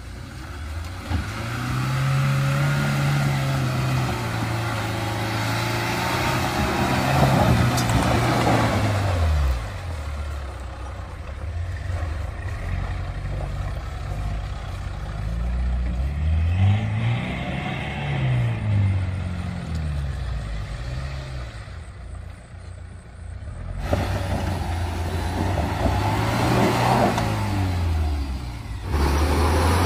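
Mahindra CJ3B jeep's engine revving up and down under load, its pitch rising and falling again and again, with a couple of abrupt jumps in the sound near the end.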